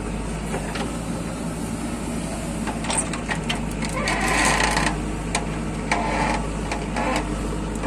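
Diesel engines of a JCB backhoe loader and a farm tractor running steadily while the backhoe works, with a few short knocks and a louder rushing noise about four seconds in.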